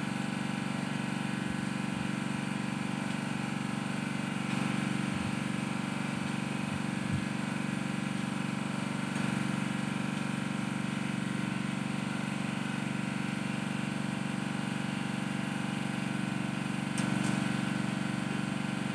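Small engine-driven water pump running steadily at an even pitch, drawing water from a bored well to clean it out.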